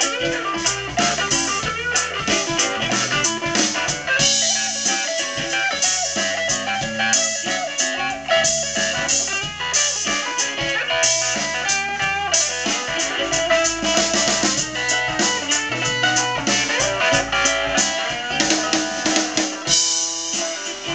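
Live blues band of mandolin, electric guitar, fiddle, bass and drums playing an instrumental break, guitar and drums prominent over a steady beat.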